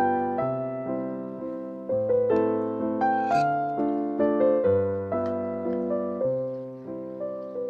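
Background piano music: a gentle piano melody of single struck notes over a slow bass line.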